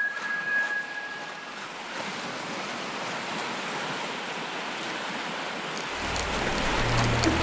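Sea waves washing up on a sandy shore, a steady hiss of surf. A held musical tone fades out in the first second or so, and a low, deep drone comes in about six seconds in.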